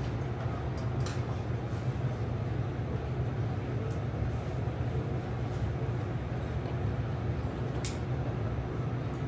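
Steady low machine hum of room equipment, even and unchanging, with a few faint short clicks, the clearest a little before 8 seconds.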